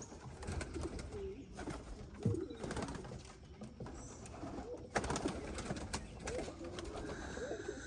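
Several domestic pigeons cooing, their low calls overlapping, with scattered light clicks and one sharp knock about five seconds in.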